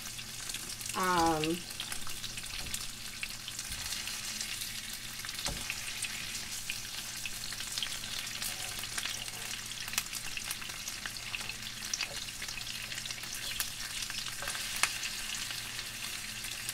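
Beef short ribs sizzling as they brown in hot oil in a skillet: a steady crackling fry with scattered sharp pops.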